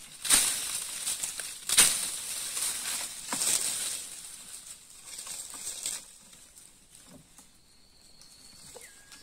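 Leafy branches with dry leaves rustling and shaking as they are grabbed and pulled by hand. There are three loud bursts about a second and a half apart in the first four seconds, then only faint, scattered rustles.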